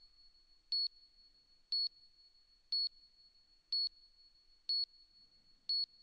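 Short electronic beeps, evenly one a second, six in all, over a faint steady high-pitched tone.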